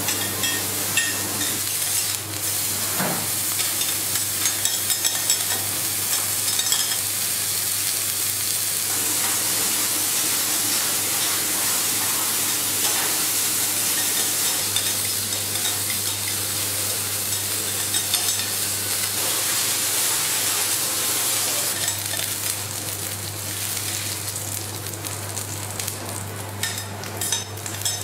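Diced meat sizzling on a hot teppanyaki griddle, with metal spatulas tapping and scraping the steel plate as they stir it. The sizzle eases a little in the last few seconds, over a steady low hum.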